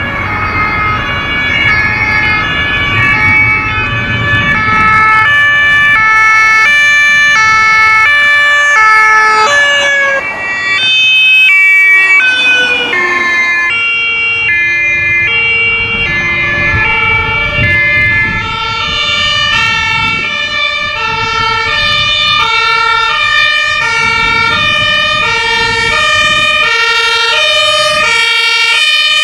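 Several two-tone emergency sirens (German Martinshorn) from police and fire-service vehicles, each switching back and forth between two notes, overlapping out of step, over engine and tyre noise as the vehicles pass. About 11 seconds in the sound breaks off and a new group of two-tone sirens takes over.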